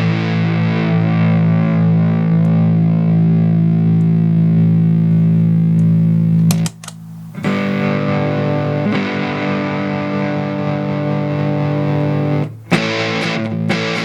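Electric guitar on its neck humbucker played through a fuzz pedal with the fuzz at mid setting: a heavily distorted chord rings out for about six seconds, is cut off, a second sustained chord rings for about five seconds, then a few short choppy chords near the end.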